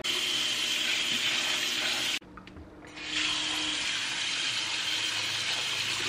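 Kitchen faucet running, its stream splashing onto food in a plastic colander in the sink. The water sound cuts off abruptly about two seconds in and resumes steadily under a second later.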